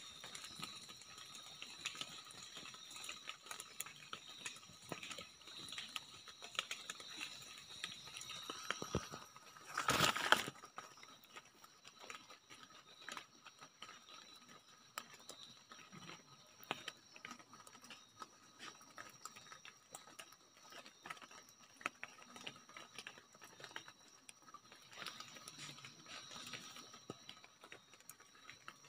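Faint chorus of night insects: steady high-pitched tones that hold throughout. Over it come scattered small clicks and rustles from handling among leaves, with one louder brief rustle about ten seconds in.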